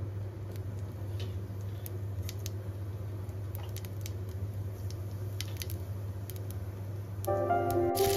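Cumin seeds crackling in hot oil in a frying pan, with scattered small pops over a steady low hum. Near the end music comes in, and a loud sizzle starts as chopped onions drop into the oil.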